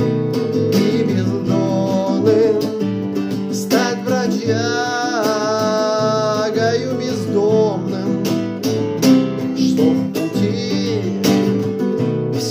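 Alhambra nylon-string classical guitar strummed in steady chords, with a man singing along; he holds one long note from about four to seven seconds in.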